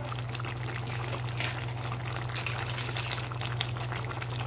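Thick jackfruit and prawn curry simmering in a pan on the heat: the gravy bubbling with many small scattered pops and crackles over a steady low hum.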